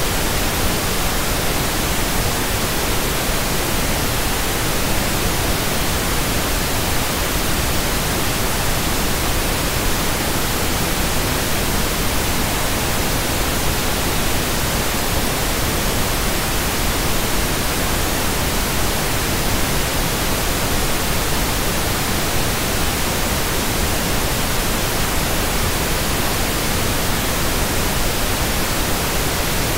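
Loud, steady static hiss: an even noise spread across low and high pitches, without tones or breaks.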